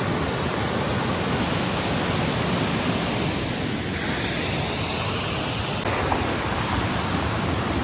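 Waterfall pouring, a steady, dense rush of falling water.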